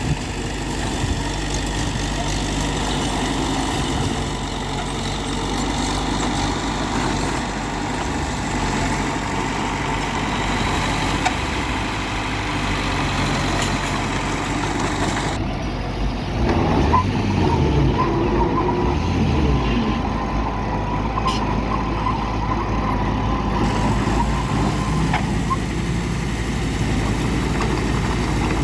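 Heavy diesel engines of dump trucks and a bulldozer running steadily. The sound changes about halfway through, with engine pulses rising and falling for a few seconds.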